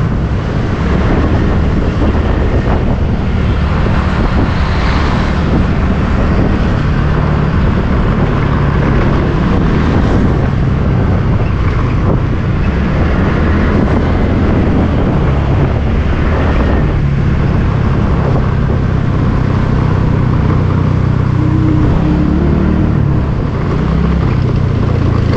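Engine of a small motorbike running steadily while it is ridden, its note shifting up and down a little with the throttle, over wind and road noise on the microphone.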